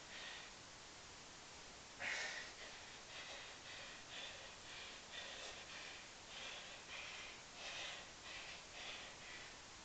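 A man breathing hard and fast through the nose and mouth, a strong breath about two seconds in and then quick breaths of about two a second: the panting of heavy exertion from a long set of pistol squats.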